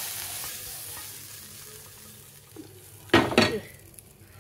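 Hot tadka sizzling in a pot of dal, the hiss dying away over the first couple of seconds. Just after three seconds in comes a brief, loud double sound.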